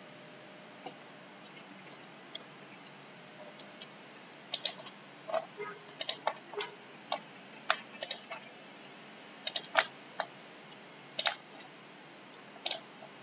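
Computer mouse buttons clicking, irregularly spaced, some single and some in quick pairs, over a faint steady background hiss.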